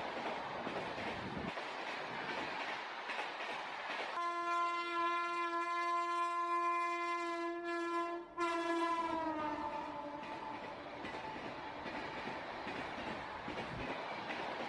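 Freight wagons rolling past close by, a steady rumble and clatter of wheels on rails. About four seconds in a train horn blows for about five seconds, cutting out for a moment near the end, then dropping in pitch as it fades.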